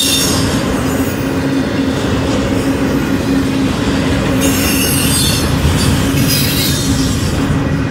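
Union Pacific double-stack intermodal freight train rolling past, its wheels on the rail making a dense, steady rumble with a constant hum. About halfway through, a high metallic wheel squeal comes in over it and fades just before the end.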